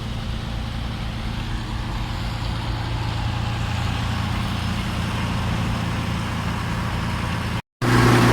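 Heavy engine running steadily with a low hum. Near the end the sound drops out briefly and comes back louder.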